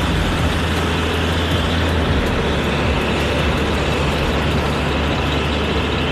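Heavy military tractor truck's diesel engine running steadily as it pulls a loaded trailer away.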